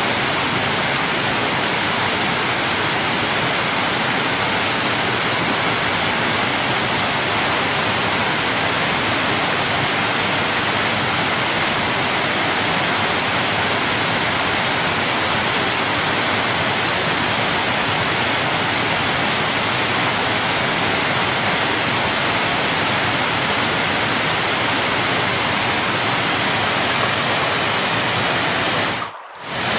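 Large waterfall: a steady, dense rush of falling water, with no pauses. Near the end it drops away sharply for a moment and comes straight back.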